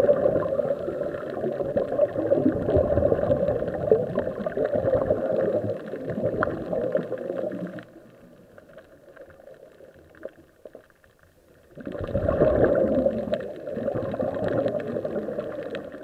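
A scuba diver's exhaled breath bubbling out of the regulator, heard underwater. It fades to faint for about four seconds in the middle, then comes back.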